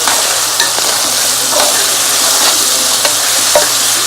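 Meat frying in a pot, sizzling steadily as it browns, with a few sharp clicks and pops scattered through.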